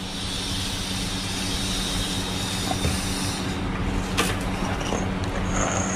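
Air hissing from a bicycle tyre valve while the hose of a folding bike's built-in seatpost pump is pushed onto it, over a steady low hum. The hiss stops about three and a half seconds in, followed by a few light clicks and a short squeak near the end.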